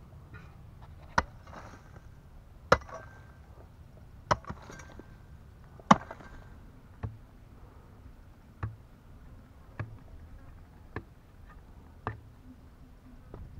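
A long-handled digging tool striking and breaking a hard, dry termite mound, about ten blows roughly a second and a half apart. The first four are the loudest, each followed by a brief patter of loosened clods falling; the later blows are softer.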